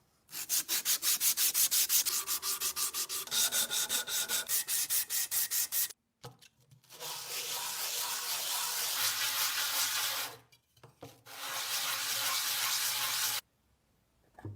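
Sandpaper scrubbing on wood: quick back-and-forth strokes, about four or five a second, for several seconds. After a short break come two stretches of steadier, continuous sanding.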